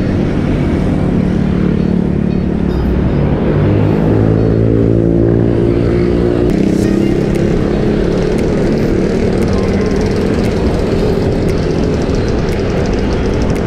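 Road traffic: motorcycle and car engines running close by, heard from a bicycle riding along a busy street, with a steady low rumble.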